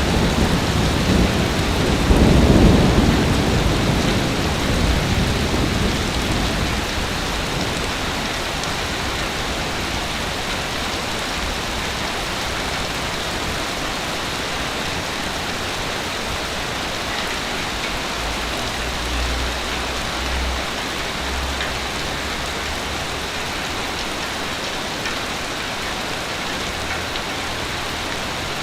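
Ocean waves on a beach: one wave breaks loudest about two to three seconds in with a deep rumble, then the surf settles into a steady hiss and wash.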